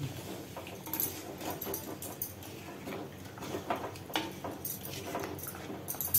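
Wooden spatula stirring a thin mutton curry in a clay pot: irregular scrapes and soft knocks against the pot's wall as the liquid is moved about.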